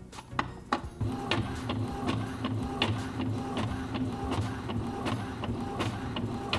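Epson L382 inkjet all-in-one printing a copy. A few clicks as the mechanism engages, then from about a second in a steady mechanical hum with regular clicks, two or three a second, as the paper feeds through.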